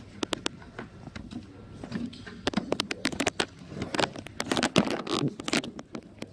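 Irregular clicks, taps and light scrapes of hands handling a DDR2 RAM stick and pressing it into the motherboard's memory slot.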